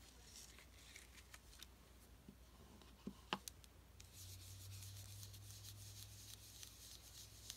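Faint rubbing and dabbing of a foam ink blending tool over a paper stencil, with a few light taps about three seconds in.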